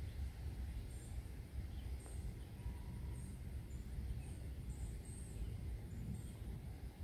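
Outdoor ambience: a steady, fluctuating low rumble with short, faint, high chirps scattered irregularly about once a second.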